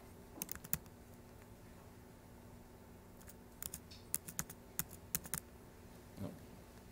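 Keys tapped on a computer keyboard: a quick few keystrokes, then a flurry of about a dozen starting around three seconds in.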